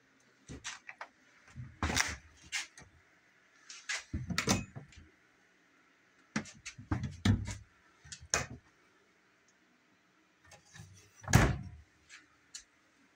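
Refrigerator and wooden kitchen cabinet doors being opened and shut, making a scattered series of knocks and clunks, the loudest one near the end.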